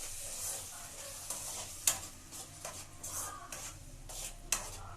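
Spoon stirring a thick tomato-and-onion curry in a pan on the heat, scraping and knocking against the pan over a steady sizzle, with one sharp knock about two seconds in.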